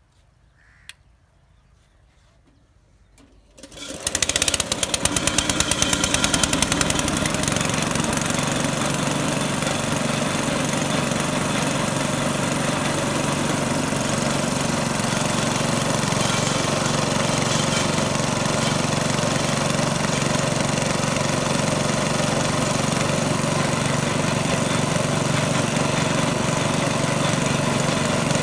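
Small petrol engine of a sugarcane juice crusher starting about four seconds in, running unevenly for a few seconds, then settling into a steady run that drives the crushing rollers.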